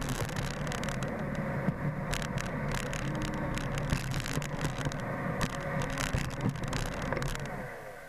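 Roomba 770 robot vacuum running over a tile floor: a steady whir from its vacuum motor and brushes, with scattered sharp clicks and knocks. Near the end the motors begin to wind down with a falling pitch as the robot stops.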